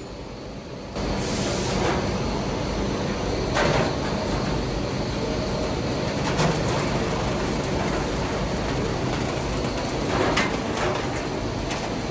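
Circuit board component dismantling machine running with a steady mechanical rumble that starts abruptly about a second in, with a few sharp clanks or rattles on top.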